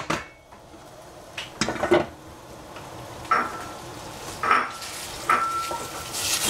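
Stainless steel saucepan clattering onto a gas burner's grate, then shrimp and sliced capsicum sizzling over a high flame as a wooden spoon stirs them. The spoon knocks against the pan about once a second, each knock leaving a short metallic ring.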